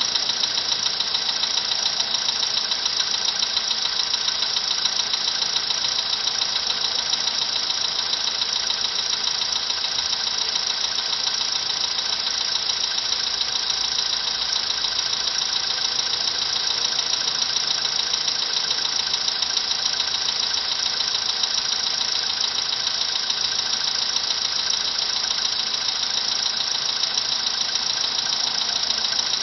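Volkswagen engine running steadily at idle with a rapid knocking in it, a knock that has come back.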